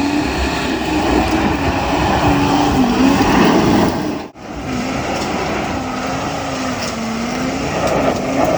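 Ford V10 truck engine revving up and down while driving through kudzu, its pitch rising and falling repeatedly. The sound breaks off abruptly about four seconds in and picks up again at the same kind of varying revs.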